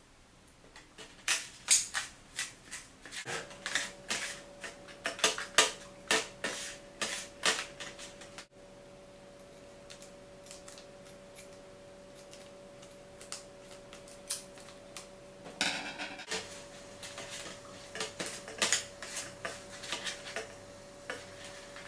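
Small plastic spoon stirring and scraping in a plastic tray, mixing chocolate powder and water into a paste: quick runs of clicks and scrapes, with a lull of a few seconds in the middle.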